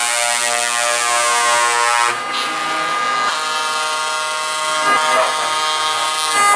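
Truck air horns sounding long, steady chords of several tones at once, the chord changing a few times.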